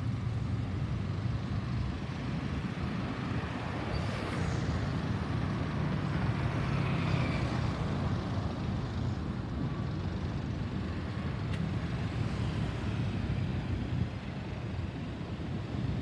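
Jet roar of an Airbus A320neo's CFM LEAP-1A engines passing overhead, steady throughout, mixed with a low rumble of road traffic.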